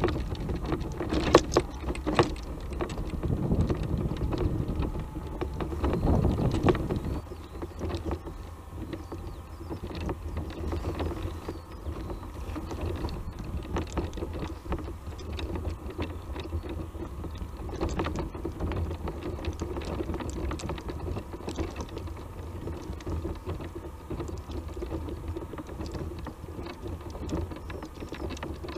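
Off-road mobility scooter's electric drive whining steadily as it climbs a rough stony track, with tyres crunching over stones and the frame rattling in small clicks and knocks. Wind buffets the microphone for the first several seconds.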